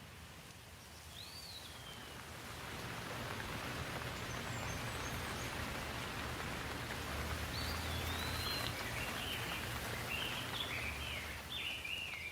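Steady rain falling, swelling about two seconds in and then holding, with a bird chirping in short rising and falling calls once near the start and repeatedly through the second half.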